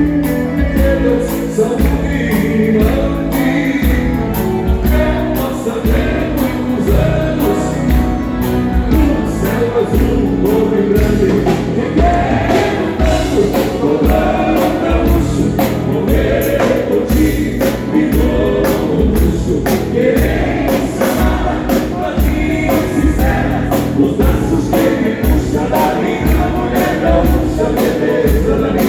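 Live band music with several voices singing together over a steady drum beat, a sing-along of a gaúcho folk song.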